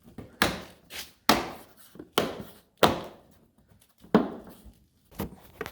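A series of about seven sharp knocks and clacks at irregular intervals, as plastic bumper trim pieces are pushed and snapped into their clips and holes on a Toyota RAV4.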